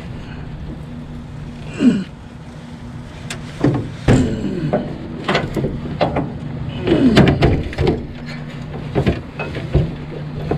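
Irregular metal clunks, knocks and short scrapes as a small engine is lifted off its mounting plate and out of a utility golf cart's frame, over a steady low hum.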